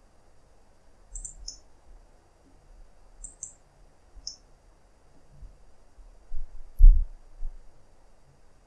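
Computer mouse and keyboard clicks. A few short, sharp high clicks come in the first half, then dull low knocks, the loudest about seven seconds in.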